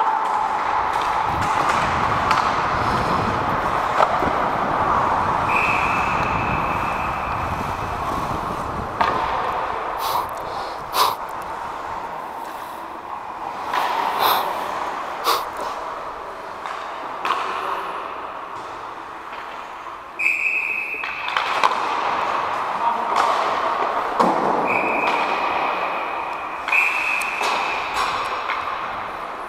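Ice hockey play heard from on the ice: a steady scrape of skates, with scattered sharp clacks of sticks and puck and a few thuds. Four short steady high tones, each a second or two long, sound about five seconds in and three more times in the last third.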